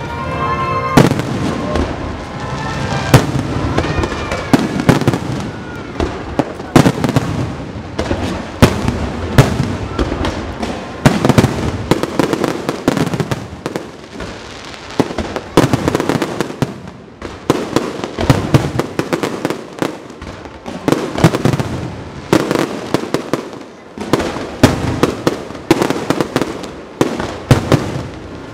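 Aerial fireworks display: shells launching and bursting in a continuous run of loud bangs and crackles, several a second.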